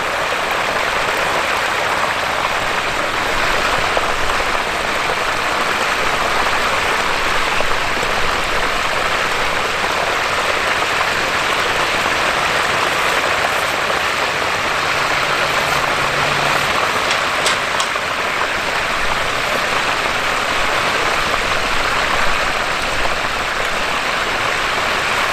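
Hot oil bubbling and sizzling steadily in a propane turkey fryer pot as a whole turkey fries in it.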